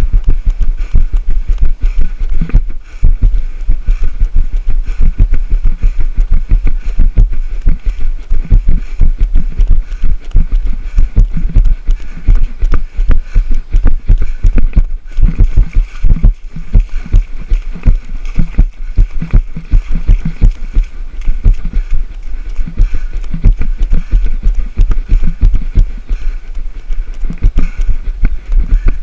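Running footsteps jolting a body-worn action camera, giving steady rhythmic thumps at about three strides a second.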